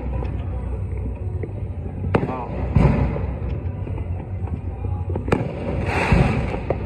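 Fireworks going off: four sharp bangs, the second and fourth followed by a brief crackle, over a steady low rumble.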